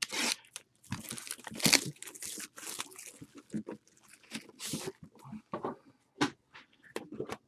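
Plastic shrink wrap crinkling and tearing as it is stripped off a sealed trading-card box, in irregular crackles and rustles, with a few light clicks and knocks near the end as the box's hard case is lifted out and handled.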